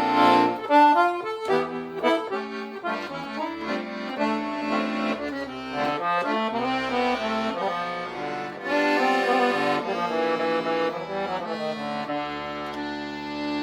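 Accordion (sanfona) playing a melodic instrumental passage of chords over a bass line, settling on a long held chord near the end.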